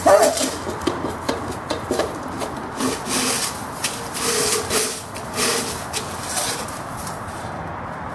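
Labrador puppy pushing a stainless-steel dog bowl around with her nose, the bowl scraping and clattering irregularly over loose gravel-like ground, with one sharper, louder sound right at the start.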